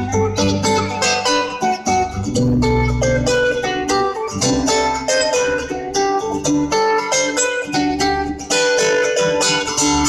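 Solo acoustic guitar: a busy run of plucked melody notes over ringing bass notes, played without a break.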